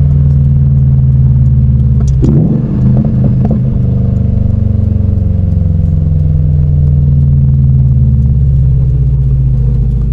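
2017 Subaru WRX STI's turbocharged flat-four engine and exhaust running steadily, with its pitch drifting slowly. There is a click and a brief break in the engine note about two seconds in.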